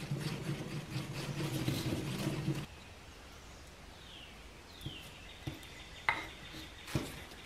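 A stick scraping and tapping as two-part epoxy is stirred on a piece of cardboard, over a steady hum; both stop suddenly about two and a half seconds in. After that it is quiet but for a few light clicks and taps as the epoxy is worked onto a wooden handle scale, and two faint falling chirps.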